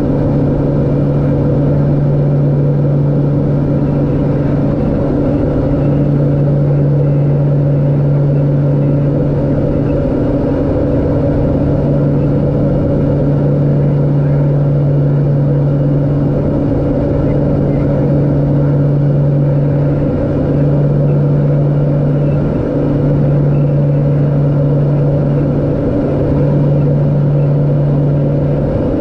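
LET L-410's twin turboprop engines and propellers heard from the cockpit: a loud, steady drone with a strong low propeller hum and its octave over rushing air. The hum flickers briefly a few times near the end.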